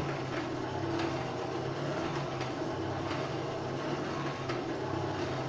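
Coal forge fire with its air blower running: a steady low hum, with a few faint clicks, while a piece heats to welding heat.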